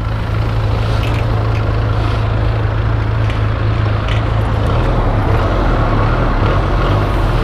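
Benelli 302S motorcycle's 300cc parallel-twin engine running steadily on its stock exhaust, a low even hum with a deeper note coming in about five seconds in.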